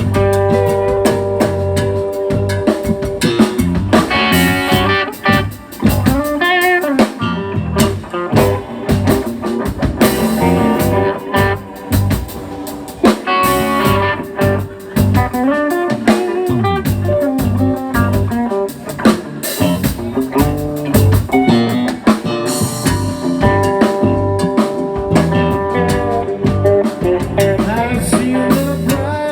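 Live band playing a bluesy instrumental passage: guitar lines with bent, wavering notes over bass and drum kit.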